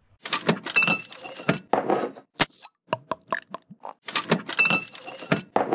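A clattering run of sharp clicks and knocks with a brief ringing tone, played twice in a row as an edited sound effect marking the start of a new segment.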